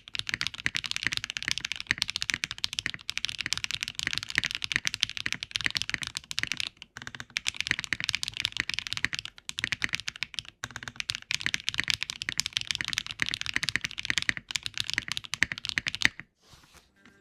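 Fast typing on an Eave65 mechanical keyboard with HMX Azure switches and Fruit Prism keycaps: a dense, continuous run of keystroke clacks with a couple of brief pauses, stopping about a second before the end.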